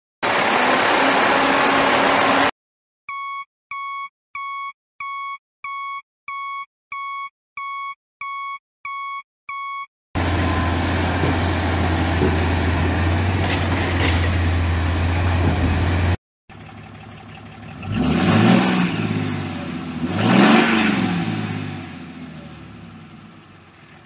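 Edited-in heavy truck sound effects: engine noise, then a reversing alarm beeping about a dozen times, then a steady low engine drone that cuts off suddenly, then the engine revving up and down twice before fading out.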